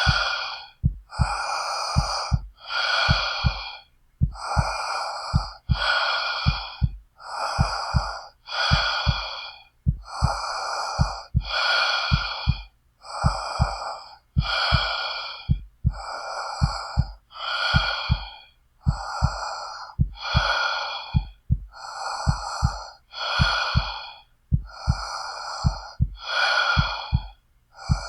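Heavy, rapid breathing, in and out with each breath under a second long, over a steady low heartbeat of paired lub-dub thumps.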